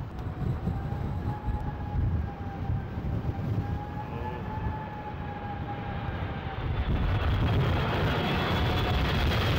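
Twin-engine jet airliner on final approach with its engines whining, over gusty wind rumbling on the microphone. The jet noise swells and grows louder from about seven seconds in as the aircraft nears overhead.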